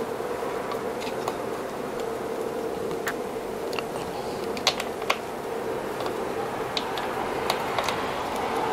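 Scattered small clicks and taps of a Phillips screwdriver and screws as the screws holding a Xiaomi M365 scooter's charging port cover are undone, over a steady background hum.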